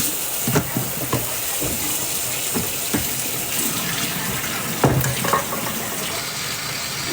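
Water running steadily from a kitchen tap, with several light knocks of utensils or dishes.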